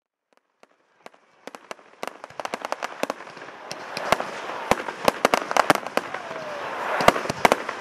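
Fireworks display: sharp bangs starting about a second in from silence and quickly building into a dense barrage over continuous crackling, with a brief falling whistle partway through.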